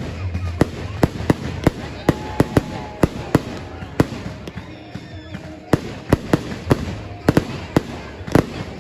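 Fireworks display: an irregular string of sharp bangs, two or three a second, with the loudest bang near the end.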